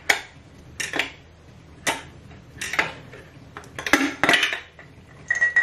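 Metal clunks and clinks from a KA24DE engine's pistons and connecting rods being pushed down out through the cylinder bores of the block, several separate knocks about a second apart with a quick cluster about four seconds in. A short metallic ring follows near the end.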